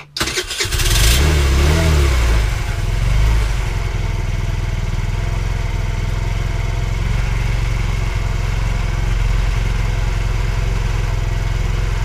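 Small single-cylinder engine of a cheap Chinese moped starting up and catching at once after standing unused for eighteen months, its fuel and carburettor freshly cleaned. It revs up and down briefly, then settles into a steady idle about four seconds in.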